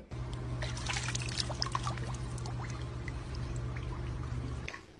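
Swimming pool water trickling and lapping around a dog standing in it, with many small droplet-like plinks over a steady low hum. It all stops just before the end.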